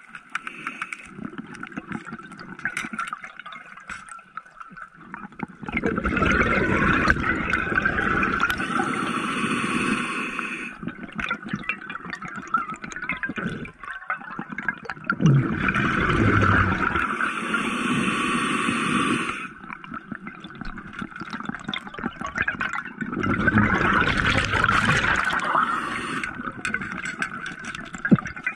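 Scuba regulator exhaust bubbles rushing out in three long bursts, one per exhaled breath, with quieter stretches between the breaths.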